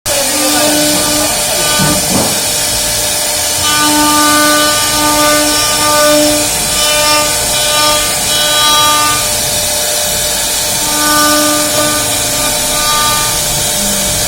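Small CNC router running. Its stepper motors give a whine of several steady tones that start and stop in short stretches as the axes move, over a steady hiss.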